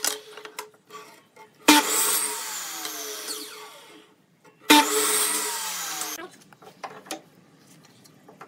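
Dongcheng compound miter saw making two cuts through pallet boards, one just under two seconds in and one just under five. Each time the motor starts sharply, the blade runs through the wood, and then it winds down with a falling whine. A few light wooden knocks follow near the end.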